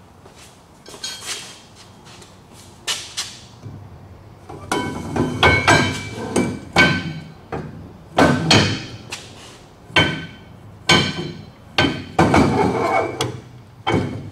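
Steel axle shaft, C-clip and differential parts clanking together as the axle is pushed in and the C-clip fitted into the side gear: an irregular series of sharp metal knocks, many with a short ringing tone, coming thickest in the second half.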